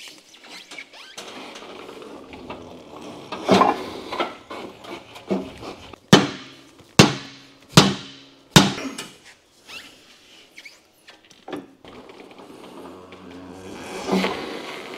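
A hammer striking four times, a little under a second apart, each blow ringing briefly, with scraping and knocking in between. The blows are working a tyre's bead over the small retaining lip on a Tesla alloy rim to get the tyre off.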